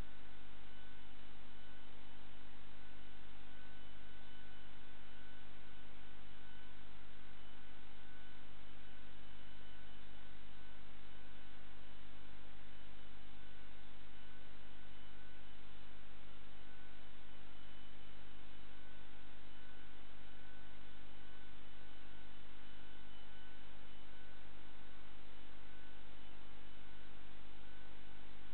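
Steady electrical hum with a constant hiss; no ball strikes or other sudden sounds.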